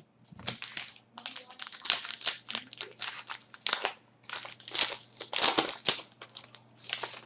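Trading-card pack wrapper crinkling as it is torn open and handled, a dense run of irregular rustles and crackles, with a faint steady electrical hum beneath.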